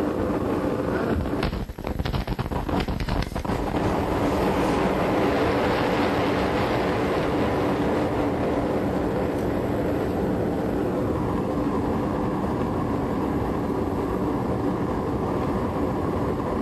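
Steady deep roar of a massive fireworks-factory explosion and its fireball, heard from a distance, with a few brief dropouts in the first few seconds.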